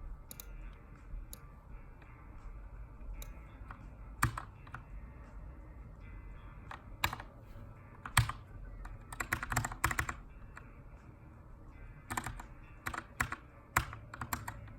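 Typing on a Keychron K2 aluminium mechanical keyboard with brown switches: irregular keystrokes, scattered single presses broken by short quick runs of keys.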